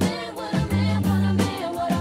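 Soul-funk style soundtrack music: a bass line and drum hits under a singing voice.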